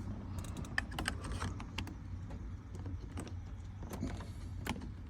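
Irregular small clicks and taps as an aftermarket billet aluminum shift knob is pushed and twisted on a Hummer H2's shift lever, feeling for the detents, over a steady low hum.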